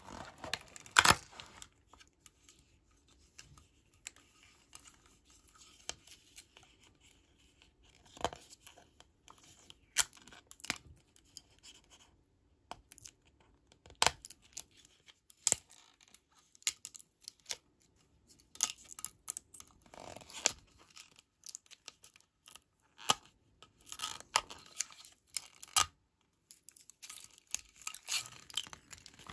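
Small hard-plastic toy doctor-set pieces being handled: scattered sharp clicks and taps, with short bursts of tape peeling and packaging rustling, busiest near the start and toward the end.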